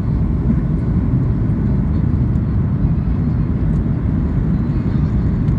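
Boeing 737 cabin noise in flight: a steady, deep rush of jet engines and airflow heard from inside the passenger cabin.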